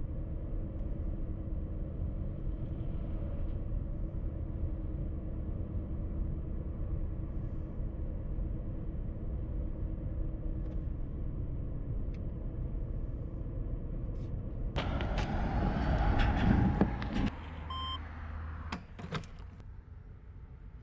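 Steady road and tyre rumble inside the cabin of a converted electric BMW driving, with no engine note and a faint steady hum. About 15 seconds in, a louder rushing noise swells for a couple of seconds, then a short beep and a few clicks as it quietens.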